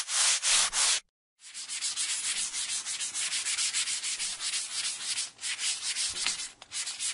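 Eraser rubbing back and forth on drawing paper in quick, rapid strokes, lifting graphite and leaving crumbs, with a short pause about a second in.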